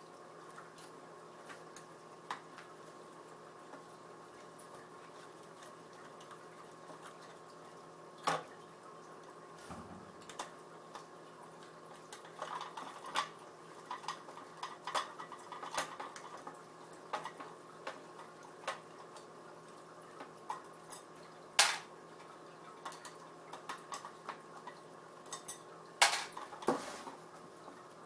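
Hex key working the screws out of a Digitech Death Metal pedal's metal bottom plate, with small metal clicks and clinks as the key and screws are handled. The clicks are scattered and grow busier in the second half, with two louder clinks late on; a faint steady hum sits underneath.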